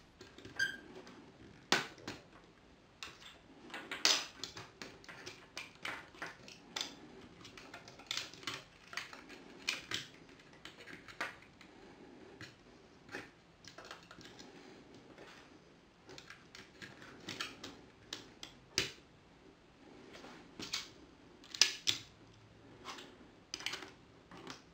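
Irregular clicks and light rattles of Lego plastic pieces being handled and pressed together on a toy train as wires are tucked into it, coming in short spells with pauses between.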